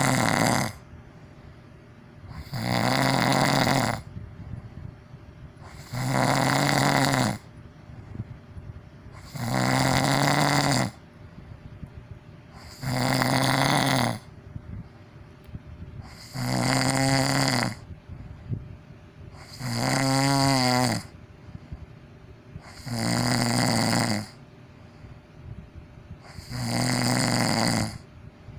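A person snoring loudly: about nine long, pitched snores, one every three and a half seconds or so, with much quieter gaps between them.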